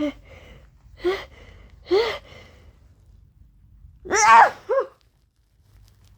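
A woman's sneeze. Three short catching gasps about a second apart build to one loud sneeze about four seconds in, with a brief second burst of voice straight after.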